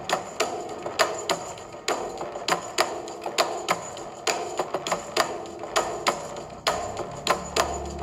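Background music of sharp wood-block-like percussive taps, several a second, over steady pitched notes, with a low bass coming in about seven seconds in.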